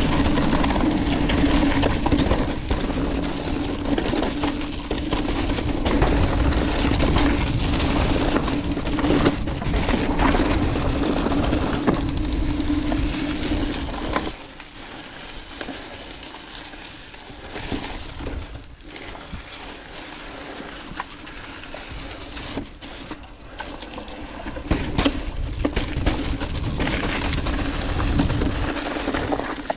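Mountain bike descending rocky dirt singletrack: loud wind rushing over the helmet-camera microphone, with tyres crunching over gravel and the bike rattling and knocking over rocks. About fourteen seconds in the wind noise drops off sharply, leaving quieter tyre crunch and scattered clatter that builds again near the end.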